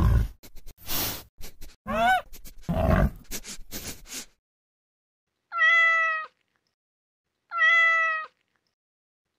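A pig grunting, with a short rising squeal, for the first four seconds. After a brief pause a domestic cat meows twice, two short even meows about two seconds apart.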